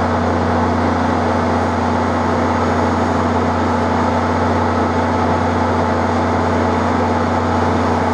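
A steady, loud mechanical drone with a constant low hum that does not change.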